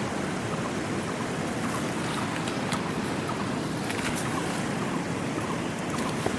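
Steady rushing of a mountain river, an even noise that doesn't change, with a few faint ticks over it.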